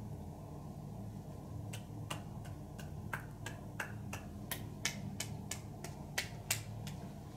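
Finger snapping: about fifteen sharp snaps in an even series, roughly three a second, the last two the loudest, over a steady low hum.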